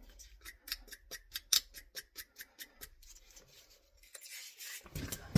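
Copper pipe fittings being cleaned for soldering: short scraping strokes, about four a second, then a longer, softer scrubbing near the end. This is the prep that bares clean copper so the solder joint will take.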